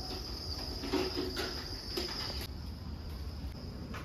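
Crickets chirring, a steady high trill that drops a little in strength about two and a half seconds in.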